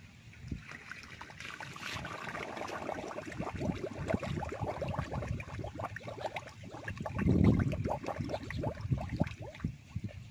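Hands sloshing and splashing in shallow, muddy water among water hyacinth stems: a quick, irregular run of small splashes and rustles, with a louder surge of sloshing about seven seconds in.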